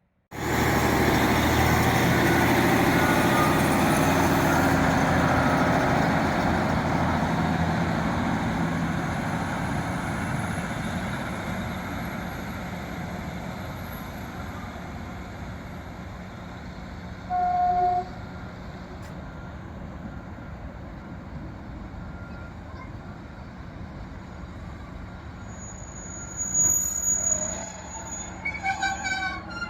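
Class 150 Sprinter diesel train running past, loud at first and then fading slowly. About 17 seconds in there is a short single horn toot, and near the end a few more brief high-pitched tones.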